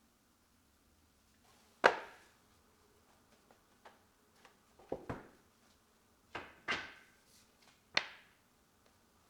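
Wood pieces knocking against each other in about six sharp, irregular knocks, each with a short ring, the loudest about two seconds in.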